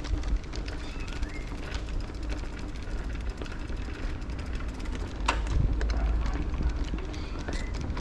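Mountain bike rolling over cobblestones: a steady rumble with constant small rattles and clicks from the bike shaking on the stones, and one sharper knock about five seconds in.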